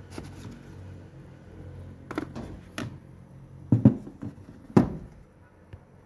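Several sharp knocks and thumps of objects being handled and set down on a desk, the two loudest about four and five seconds in, over a low steady hum.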